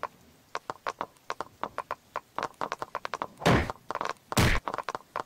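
Wooden clogs clattering in quick, uneven clicks on pavement as their wearers scramble and slip, then two heavy thuds about a second apart as bodies hit the ground, cartoon-style.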